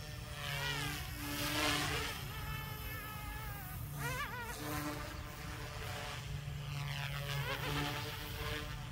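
Small electric RC helicopter (Goosky S2 on a heavy resin 3D-printed airframe) in flight: a buzzing motor-and-rotor whine that rises and falls in pitch in several swells as the throttle and load change. It flies at a 60% throttle setting, so the head speed is low and the helicopter flies sluggishly.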